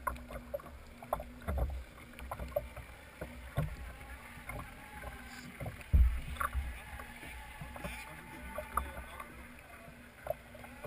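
Choppy water lapping and slapping against the hull of a model powerboat sitting at a pontoon, with irregular low thumps, the strongest about six seconds in, and a faint steady hum underneath.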